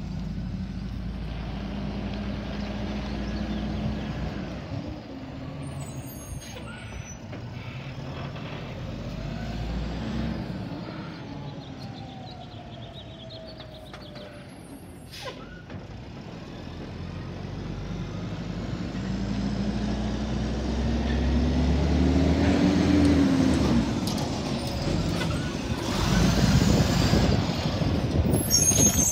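Automated side-loader garbage truck's diesel engine running as it drives away, quieter in the middle, then pulling up close with the engine rising in pitch and getting louder. A hiss of air brakes near the end.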